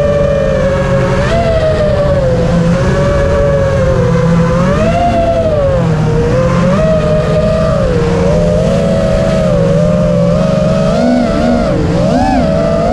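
The brushless motors and props of a 5-inch FPV freestyle quadcopter (Hyperlite 2206 2600 kV motors on a 4S battery) whining as it flies. The pitch rises and falls continually with throttle, with quicker swoops near the end.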